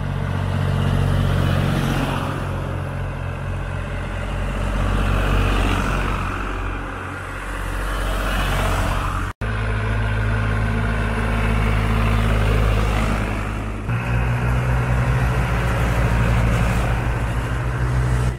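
Tractor engines running steadily as tractors drive past one after another, a low, even drone with road and tyre noise over it. The sound drops out for an instant about nine seconds in, and the engine note changes again about fourteen seconds in as another tractor is heard.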